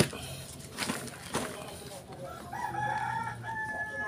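A rooster crows once, one long call through the second half. Before it come a few knocks and soil rustles as a plastic nursery pot is struck and pulled off a dense root ball.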